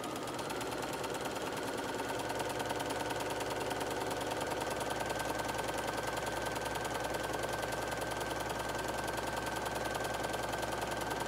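Bernina electric sewing machine running continuously, stitching a seam through two layers of fabric at a fast, even pace. It gets a little louder over the first two seconds, then runs steadily.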